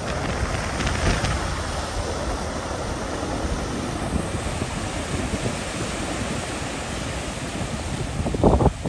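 Sea waves breaking and washing in as surf on the shore, a steady rushing noise, with wind buffeting the microphone. A few louder gusts near the end.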